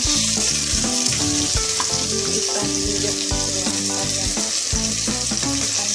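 Sliced aromatics and green chilli sizzling in hot oil in a pot, stirred with a wooden spatula; a steady frying hiss.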